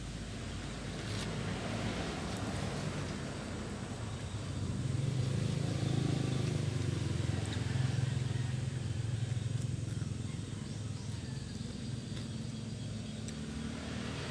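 A motor vehicle engine running nearby, growing louder through the middle and then easing off, as if passing by.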